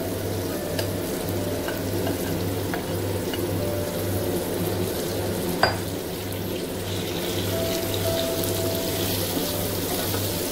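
Curd-marinated mixed vegetables sizzling and frying in hot oil and onions in a kadai, stirred with a spatula. There is one sharp knock about halfway through.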